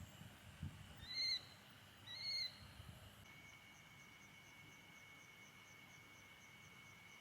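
A bird calling: two short, arched, whistled notes about a second apart. A steady thin high tone sets in about three seconds in.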